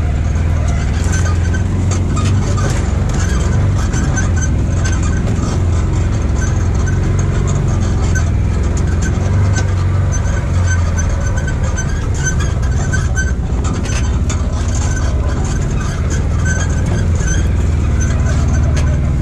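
Side-by-side UTV engine running steadily while driving a rough dirt trail, with scattered knocks and rattles from the machine jolting over the bumps.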